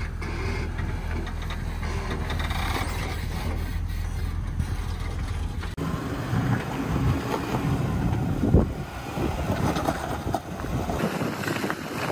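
Jeep Wrangler engine running low and steady as it crawls over slickrock, then a second Jeep working up the rock with wind buffeting the microphone and a sharp thump about eight and a half seconds in.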